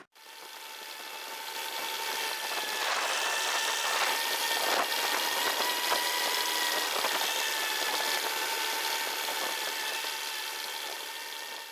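Diesel tractor engine running steadily with a high whine, fading in over the first couple of seconds, with a few knocks partway through.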